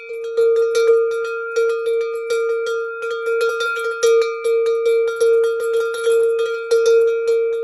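Small tower bell, about 7¼ inches, rung continuously by its clapper hitting the sides: quick, uneven strikes a few times a second over one steady ringing note with bright overtones. The strikes stop near the end and the note rings on.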